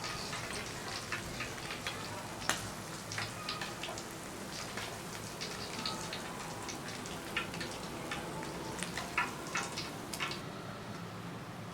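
Chicken wings frying in a pan, sizzling with scattered crackles and pops of spitting oil. The crackling thins out about ten seconds in.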